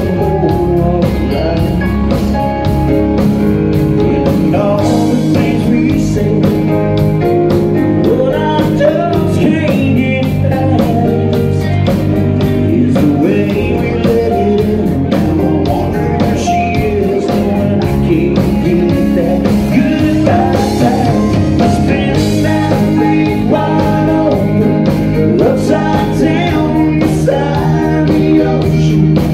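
A live rock band plays: a male singer sings into a microphone over electric guitar, bass guitar and a drum kit keeping a steady beat.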